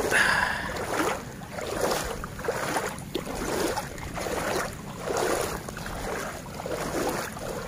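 Water sloshing as a person wades through knee-deep floodwater, a swish with each step, over and over.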